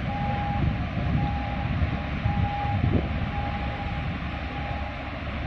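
Wind buffeting the microphone in a low, gusting rumble over a steady hiss, with a faint thin tone that keeps cutting in and out.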